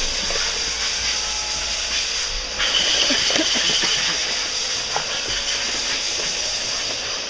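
Steady hiss from a poor camera microphone, dropping out briefly twice, with a faint high whine about three seconds in.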